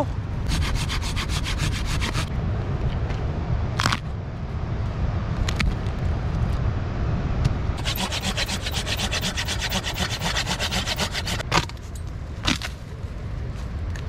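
Dry branches and brushwood being gathered and broken for firewood: two stretches of rapid scratchy rubbing strokes, about half a second in and again from about eight seconds in, with a few single sharp cracks between them, over a steady low rumble.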